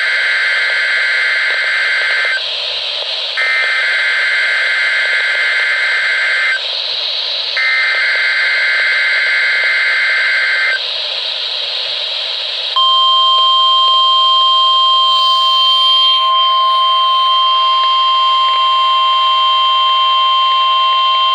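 NOAA Weather Radio weekly alarm test tones received over radio static: three bursts of the digital SAME header data, a harsh warbling screech about three seconds long each with a second's pause between. Then, about thirteen seconds in, the steady single-pitched warning alarm tone starts and holds.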